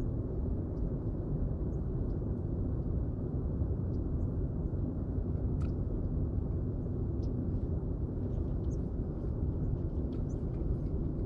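Steady low rumble of wind buffeting the camera's microphone, with a few faint high ticks scattered over it.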